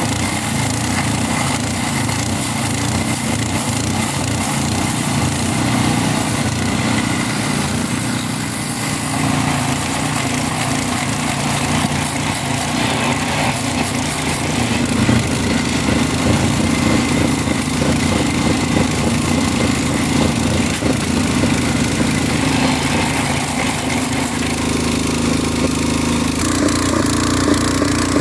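Small petrol engine of a portable abrasive-disc rail saw running steadily as its disc grinds through a steel rail. About 26 seconds in, the sound changes to another small engine-driven track machine running.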